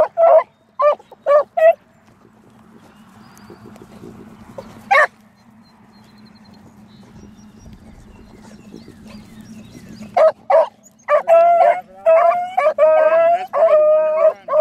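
Beagles giving tongue on a rabbit's scent line: a run of quick, short barks for the first couple of seconds, a lull of faint rustling with one sharp yelp, then the baying starts again about ten seconds in and settles into longer drawn-out bawls near the end.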